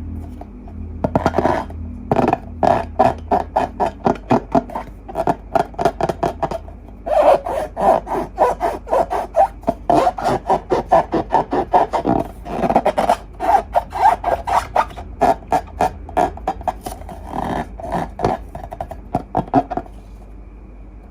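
Slime being squeezed and worked by hand: a fast, irregular run of short sticky clicks and pops, several a second, with brief pauses.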